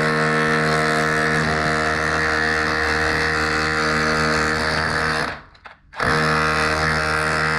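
Cordless DeWalt SDS rotary hammer in chisel mode, its flat chisel bit hammering and shaving back brick to recess a socket back box. It runs steadily, stops briefly about five and a half seconds in, then starts again.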